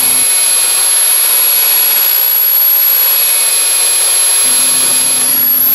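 High-speed rotary tool running steadily with a high-pitched whine, its grinding bit working down the protruding lip of a ceiling electrical box so the light fixture's base will sit flat.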